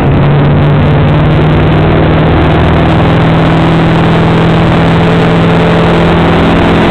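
Motorboat engine running steadily at towing speed, pulling a wakeboarder, over the rushing water of the boat's churning wake.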